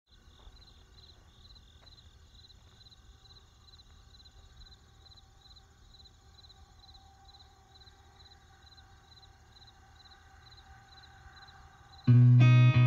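Crickets chirping faintly, an even high-pitched chirp about twice a second. About a second before the end, loud plucked guitar music comes in suddenly.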